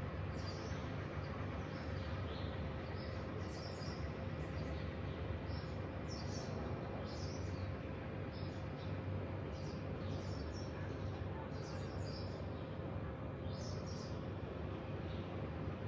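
Small birds chirping in short, high, scattered calls over a steady low background rumble, with a faint steady hum underneath.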